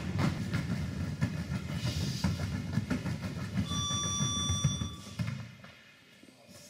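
Heavy battle ropes slapping the gym floor mats in rapid, continuous waves, stopping about five seconds in. A high steady beep sounds for about a second just before the slapping stops.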